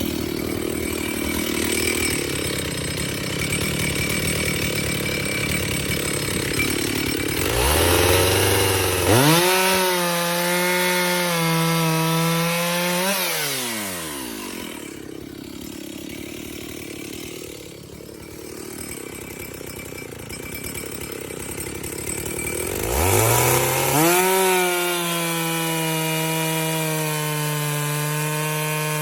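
Two-stroke chainsaw with a hand-sharpened chain cutting through oak under load, then revved high out of the cut and dropping back to idle a little before halfway. About 23 seconds in, the saw is throttled up again and holds at steady high revs.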